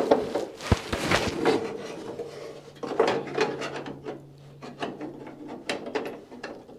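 Irregular scraping, rubbing and light knocks of metal as a steel nut plate and bolts are worked by hand into a 1955 Chevrolet Bel Air's door hinge pocket.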